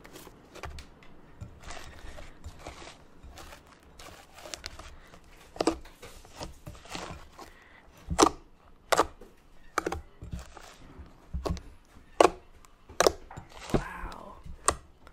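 Pink cloud slime made with instant snow being squeezed and kneaded by hand, then poked and pressed in a glass bowl, giving irregular sticky clicks and pops that get louder and more frequent after the first few seconds.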